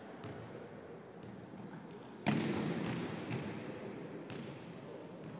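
Volleyball impacts echoing in a gymnasium: one loud, sharp smack a little over two seconds in, with fainter ball knocks about once a second over a low background hubbub.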